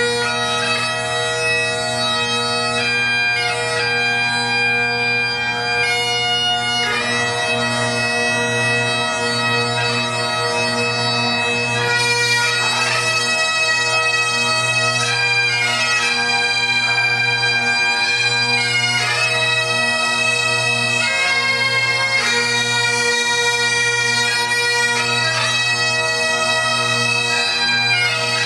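Bagpipes playing a tune over steady, unbroken drones.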